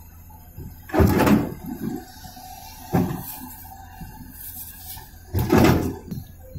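Hyundai HX210S crawler excavator at work: a steady low engine hum, broken by three loud bursts of noise, about a second in, about three seconds in, and near the end.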